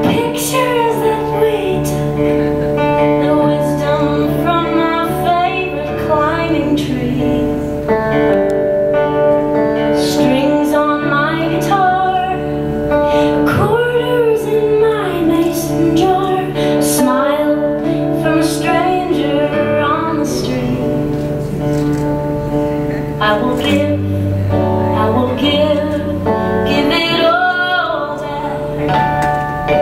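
A woman singing, accompanied by acoustic guitar.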